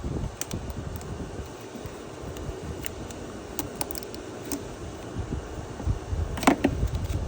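Scattered light clicks and taps of parts being handled while a hose and its clip are worked into place on a small generator, over a steady low background noise; a sharper knock comes near the end.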